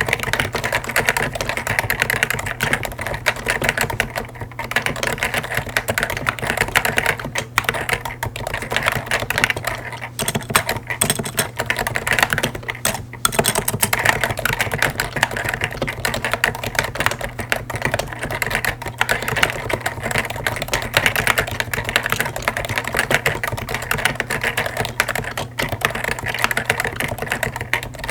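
Continuous fast typing on a Topre Realforce Hi-pro keyboard, whose 45 g electrostatic capacitive Topre switches sit under stock Hi-pro keycaps. The keystrokes come thick and even, with a few brief pauses.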